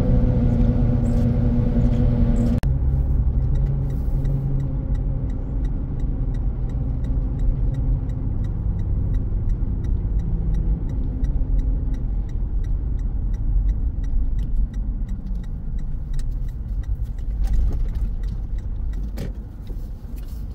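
Road and engine noise heard inside a moving vehicle's cabin: a steady low rumble. A steady hum over it cuts off suddenly about two and a half seconds in, and the noise eases off near the end.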